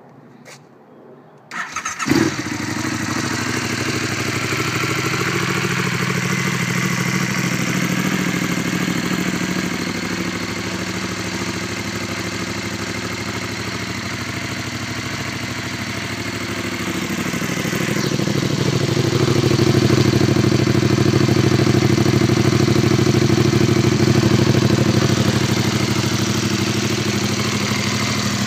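Aprilia Caponord 1200's 1197 cc 90-degree V-twin with an Arrow titanium exhaust starting: the starter turns briefly and the engine catches about two seconds in. It then idles steadily, growing louder from about eighteen seconds in.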